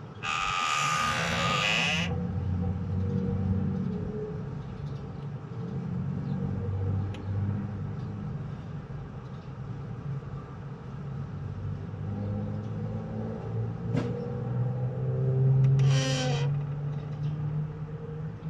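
Steady low mechanical rumble outdoors, with a loud hissing burst lasting about two seconds at the start and another short loud sound about 16 seconds in.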